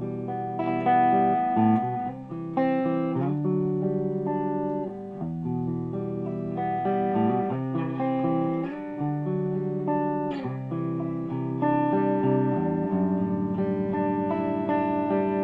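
Electric guitar played clean through a 100-watt all-tube amplifier with two KT88 power tubes and 12AX7 preamp tubes, a Brit-Tone SVO. Chords and single notes are picked and left to ring.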